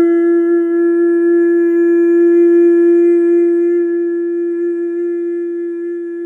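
A single long held note at one steady pitch with a breathy edge, loud at first and slowly fading.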